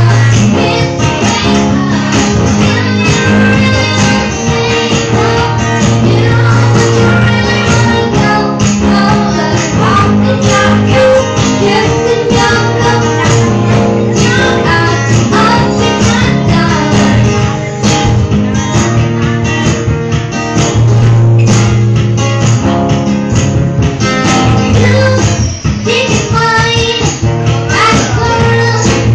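Live acoustic music: a strummed acoustic guitar with singing into microphones, carried through the bar's PA, playing steadily throughout.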